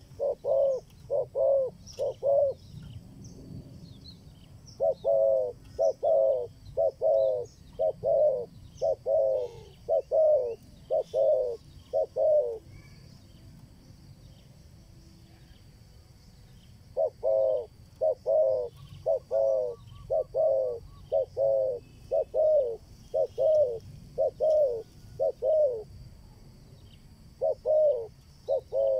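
Spotted dove cooing: long runs of short, falling coos, about two a second, broken by pauses of a few seconds. Small birds chirp faintly in the background.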